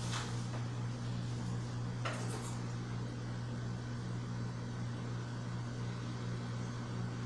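Steady low electrical hum, with a short faint scratch at the start and another about two seconds in.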